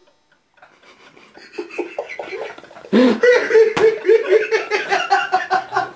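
A man laughing: faint chuckles at first, breaking about halfway through into loud laughter in quick even pulses, with one sharp knock shortly after it starts.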